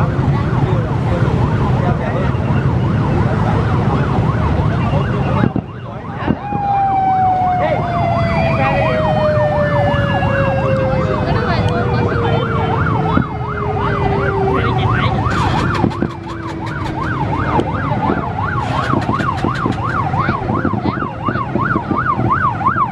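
Fireworks display: a steady rumble of booms with bursts of rapid crackling about two thirds of the way through and again near the end. Over it runs a wavering, siren-like tone that rises and falls about twice a second, and a single long tone that falls slowly in pitch through the middle.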